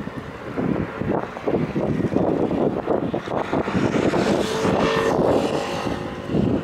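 Gusty wind buffeting the microphone over a steady motor drone, with a faint steady tone coming in about two-thirds of the way through.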